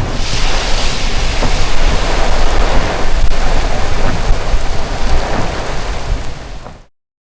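Heavy rain pouring in a severe thunderstorm, loud and steady, with a constant low rumble underneath. It fades out quickly near the end.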